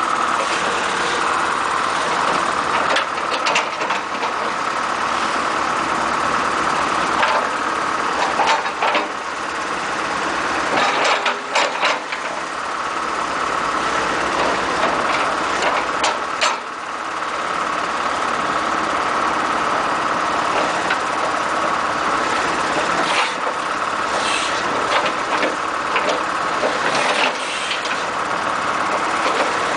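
Backhoe loader's diesel engine idling steadily, with scattered short clicks and knocks over the top.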